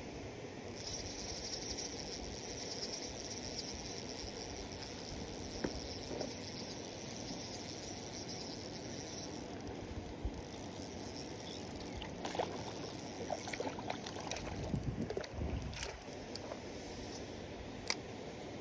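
Steady outdoor hiss at a fishing pond, joined by a higher hiss that starts just under a second in and stops about two-thirds of the way through. Then come scattered clicks and a few low knocks, as of tackle being handled.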